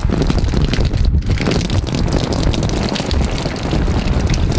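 Wind buffeting the microphone: a loud, steady rush with heavy low rumble and crackle.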